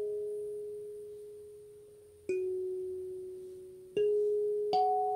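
Wooden kalimba played slowly by thumb. A plucked note rings and fades away over about two seconds, then single tines are plucked about two seconds in, near four seconds in, and again shortly after, the last one higher. Each note rings on clear and bell-like.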